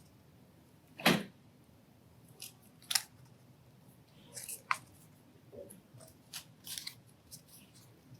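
Origami paper being folded and creased by hand: short, irregular crinkles and crackles of the sheet, the loudest about a second in, with several smaller ones after.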